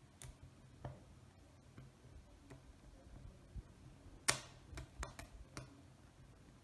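A few light clicks and taps, scattered and irregular, with the sharpest one about four seconds in and a quick run of smaller ones just after.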